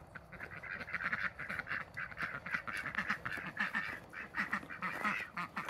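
Ducks quacking in a rapid, continuous chatter of short calls, in a yard shared with chickens.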